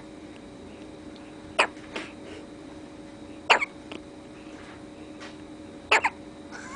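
Newborn baby hiccuping: short, sharp, loud hiccups every two seconds or so.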